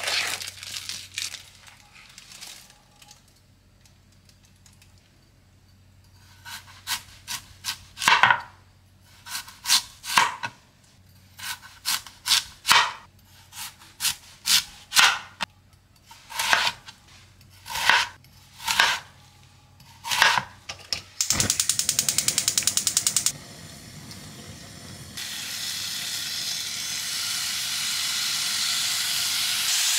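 A kitchen knife slicing through a Korean radish, about twenty cuts each ending in a knock on the cutting board. Near the end, thin slices of fatty beef brisket begin to sizzle in a pot as they fry in their own fat, the hiss growing louder. Between the two, a brief rapid ticking buzz.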